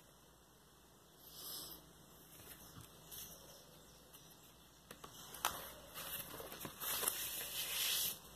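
A cardboard LP jacket and paper insert being handled, with papery rustling and light taps. The loudest part comes near the end: a long sliding rustle as the printed insert is drawn out of the jacket.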